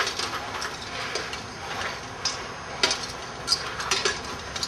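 Steel swords and plate armour clinking as two armoured fighters spar: a handful of sharp, scattered metal clinks, mostly in the second half.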